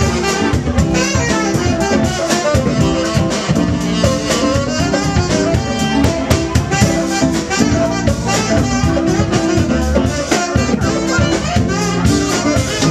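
Live band playing loudly, with a steady drum beat under pitched instrumental lines.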